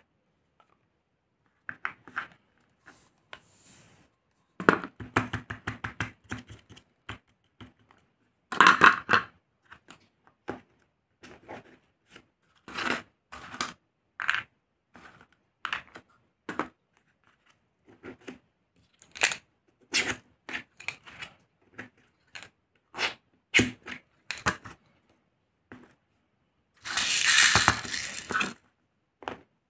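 Plastic shotgun shell hulls and wads being handled on a cardboard-covered table: scattered clicks, taps and light scrapes. Near the end comes a denser rattling for a couple of seconds.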